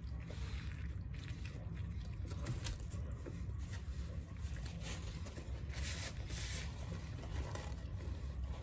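A man chewing a big bite of double cheeseburger with his mouth closed: faint soft wet crackles. A paper napkin rustles briefly around six seconds in, over a low steady hum.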